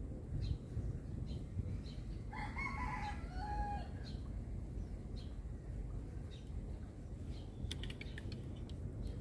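A rooster crows once, a stepped call about a second and a half long, beginning about two seconds in, over a steady low rumble. Light clicks follow near the end as the baitcasting reel is handled.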